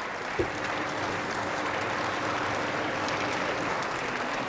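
Parliament members applauding steadily, with a single sharp knock about half a second in.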